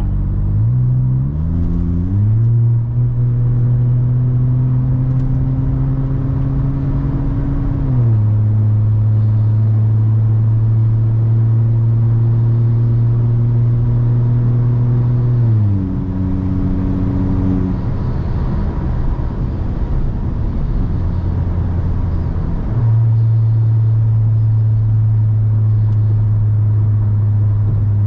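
Very loud, low exhaust drone from a VW T-Cross's 1.0 TSI three-cylinder turbo engine, running with the pipe open straight after the catalytic converter. Its pitch climbs in two steps in the first few seconds, holds steady, drops about eight seconds in and again about sixteen seconds in, then rises again near the end.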